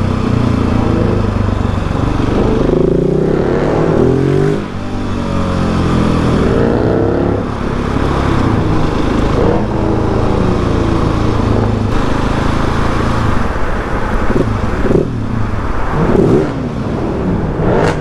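Mercedes C63 AMG's V8 exhaust revving and accelerating, its pitch rising and falling several times, heard over the steady running of a Husqvarna 701 supermoto's single-cylinder engine and road noise from the following bike.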